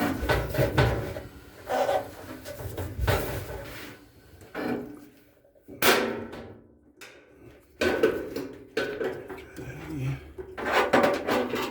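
Irregular clattering, knocking and scraping of metal dryer parts and tools being handled, with a lull in the middle broken by one sharp knock.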